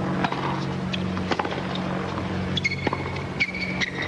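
Tennis ball struck by rackets during a rally: several sharp hits, over a steady low hum. A high steady tone sounds briefly near the end.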